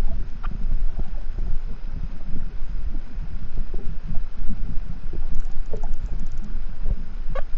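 Underwater, a loud low rumble of water rushing past the camera. Over it come a few faint short calls and, about two-thirds through, a quick train of clicks from the pilot whale and rough-toothed dolphins. A call rising in pitch follows near the end.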